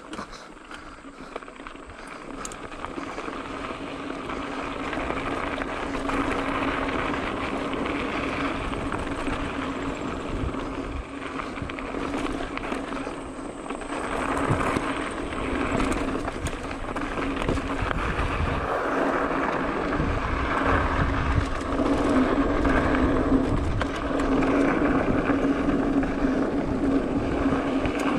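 Wind buffeting the camera microphone and mountain bike tyres rolling over a dry dirt trail on a downhill run, with knocks and rattles from the bike over bumps. It builds up over the first several seconds as speed picks up, then stays fairly steady with a constant low hum underneath.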